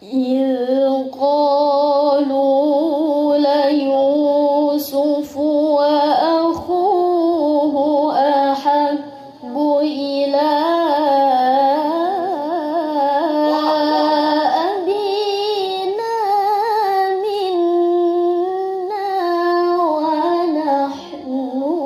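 A young female qari'ah reciting the Quran in the melodic tilawah style. She sings long ornamented phrases of held, wavering notes, breaking briefly for breath about nine seconds in.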